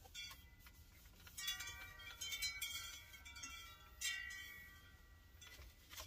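Chimes ringing: several struck metallic tones that ring on and overlap, fading slowly, with the strongest strikes about a second and a half and four seconds in.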